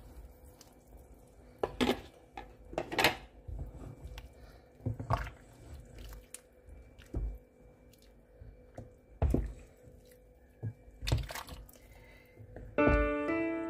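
A wooden spoon stirring a pot of pepper soup, knocking and scraping against the stainless steel pot about six times at uneven intervals. Piano music comes in near the end.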